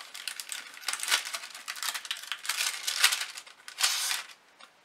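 Glassine paper bag rustling and crinkling in irregular bursts as it is opened and sheets of alphabet stickers are slid out of it, from about a second in until just past four seconds.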